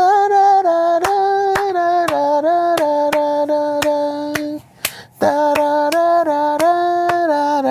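A voice singing a slow melody of held notes that step up and down, over a steady beat of claps about two a second. It breaks off briefly about five seconds in, then resumes.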